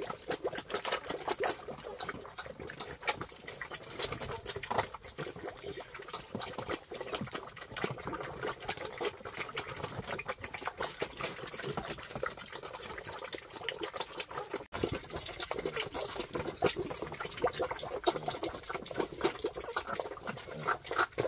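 Wild boar sow and piglets eating from a wooden trough, a dense, irregular run of wet chewing and slurping smacks.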